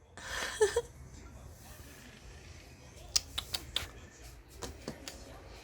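A short breathy burst like a sneeze, with two brief squeaks in it. About three seconds later comes a quick run of about five sharp clicks.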